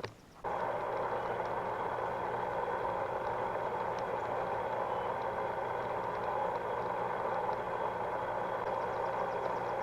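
Above-ground pool's filter pump switched on, starting about half a second in and then running steadily: a motor hum under the rush of water circulating through the newly fitted skimmer.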